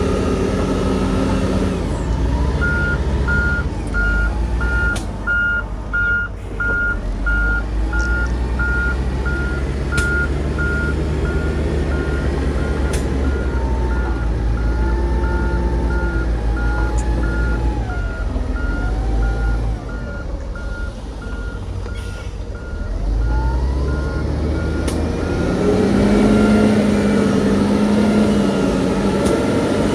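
A reversing alarm beeps steadily at one pitch, about one and a half beeps a second, over the low running of a heavy diesel engine on construction machinery. The beeping starts a few seconds in and stops a few seconds before the end, when the engine note rises.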